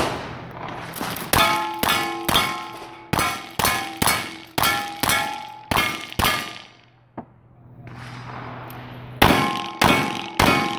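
Rapid gunfire on a timed stage, each shot followed by the ring of a struck steel target: a quick run of about ten shots, a pause of about three seconds, then another quick run.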